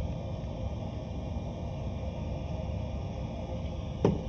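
Steady low background rumble with one short knock near the end.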